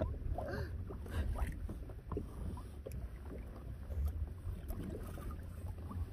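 Wind rumbling on the microphone, with small waves lapping and slapping against a kayak hull.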